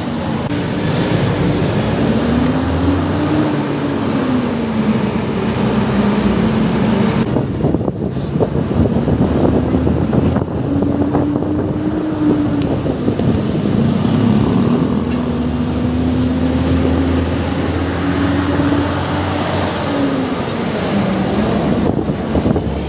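Road traffic noise heard from a moving bicycle: a steady rush of noise with the engine hum of passing vehicles, rising and falling in pitch several times.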